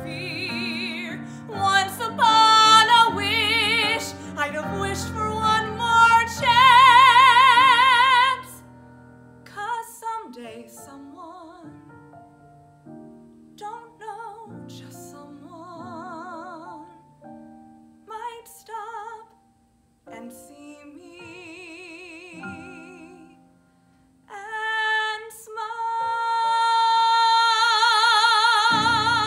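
A woman singing a musical theatre ballad solo, in a trained, operatic style with vibrato on the held notes, over piano accompaniment. A loud held note comes about seven seconds in, the middle is softer with short breaks, and a long high note swells from about twenty-four seconds in to the end.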